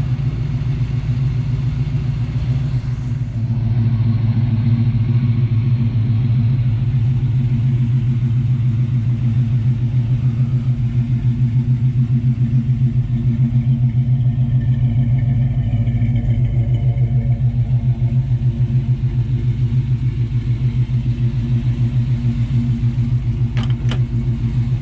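1970 Chevrolet C-10's 350 V8, with headers and dual Flowmaster-style mufflers, idling steadily with an even exhaust pulse. A couple of sharp clicks near the end as the driver's door handle is worked.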